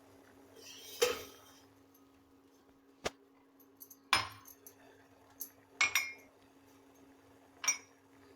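Kitchen utensils and cookware clinking: about five sharp clinks and knocks a second or two apart, several with a short metallic ring.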